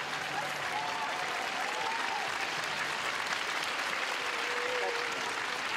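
Large arena crowd applauding steadily, with a few high voices calling out above the clapping.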